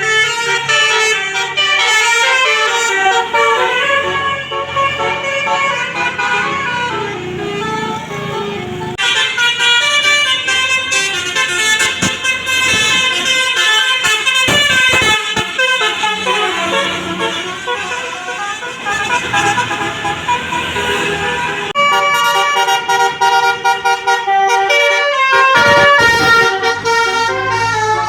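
A bus's basuri musical air horn playing a melody of stepping tones, changing tune about nine and again about twenty-two seconds in, over a running bus engine.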